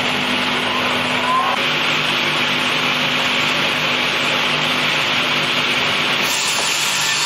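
Sawmill machinery running: a steady loud mechanical noise with a low hum underneath.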